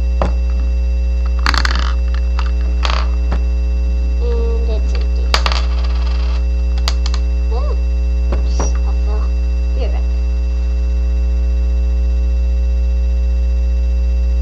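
Loud, steady electrical mains hum, with a few short clicks and rattles and brief faint vocal sounds scattered through the first nine seconds.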